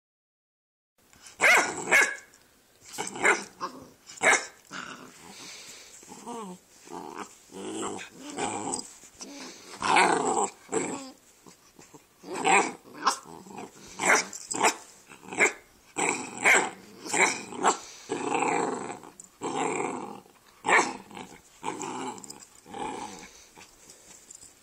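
Two Great Dane puppies barking and growling at each other, starting about a second in. Many short sharp barks are mixed with longer growling stretches.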